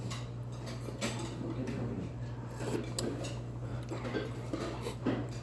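Metal spoon stirring and clinking against a heavy black soup bowl: scattered light clicks and scrapes, over a steady low hum.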